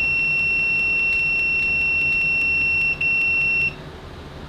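ANENG 620A multimeter's continuity buzzer sounding one steady high-pitched tone, with a brief dropout about three seconds in, then cutting off near the end. At its maximum it reads about 69 dB on a sound meter: not that loud.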